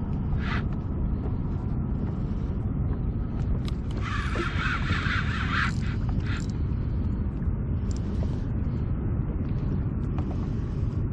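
Steady low rumble of wind buffeting the microphone on open water, with short hissing bursts about half a second in and again from about four to six seconds in.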